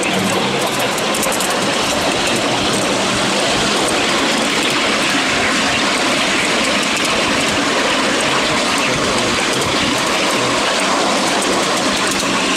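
Miniature railway train running along the track, heard from on board a ride-on passenger car: a steady rolling noise of the wheels on the rails.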